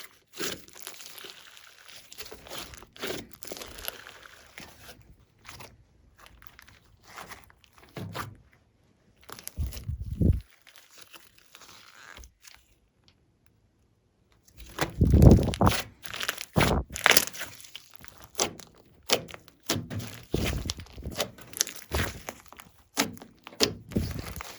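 Slime being squished, folded and stretched by hand, making irregular sticky pops and clicks. The pops thin out and pause briefly about halfway through, then come back thicker and louder.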